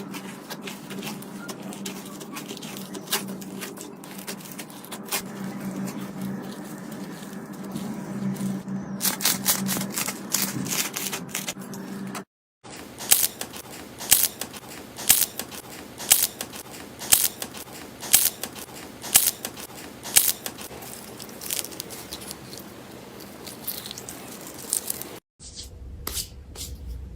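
Slime being squeezed and poked close to the microphone: sticky clicks and crackles, with a run of sharper pops about once a second in the middle. The sound cuts out briefly twice and changes character after each break.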